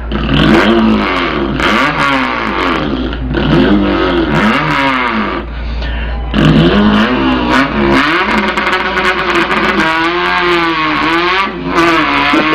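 A man imitating a revving import car engine with his mouth: the pitch sweeps up and drops again over and over like an engine climbing through the gears, with a short break about halfway and a steadier warbling tone near the end.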